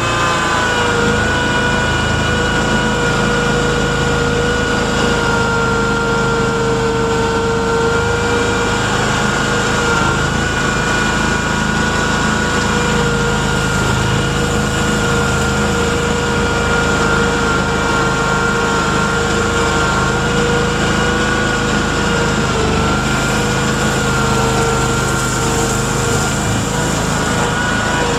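Mudd-Ox 8x8 amphibious ATV on Adair tracks running steadily, heard on board: a constant engine drone with a steady high whine over it, dipping slightly in pitch a few times.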